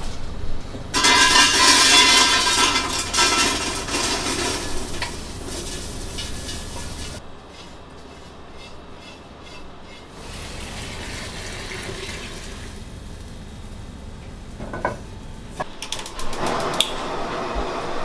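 Hot dry-toasted crickets tipped from a frying pan into a stockpot of water, giving a loud hiss for several seconds as the cricket broth is started. Afterwards a spatula scrapes the metal pan, with a few sharp knocks near the end.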